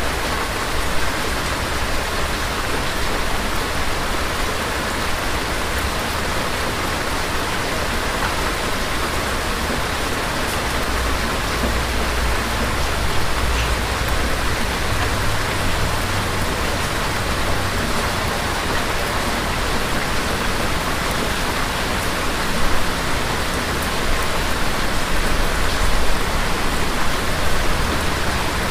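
Steady heavy rain falling, with low rolls of distant thunder swelling up around the middle and again near the end.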